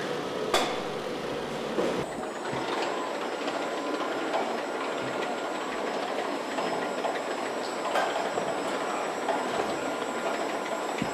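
Car-factory assembly-line noise: a steady mechanical rolling hum of conveyors and machinery, broken by a few sharp metallic knocks, one about half a second in and another around eight seconds in.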